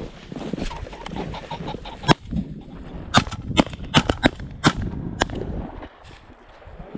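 A pheasant flushing close by, giving a quick run of harsh cackling calls. A sharp bang about two seconds in is the loudest sound.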